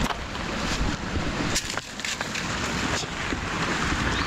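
Shallow stream running over stones, with a broom swishing and splashing through the water several times as fallen leaves are swept out of the channel.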